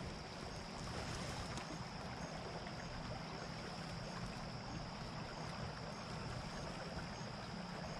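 Small creek running: a steady, even rush of flowing water, with a thin steady high-pitched tone above it.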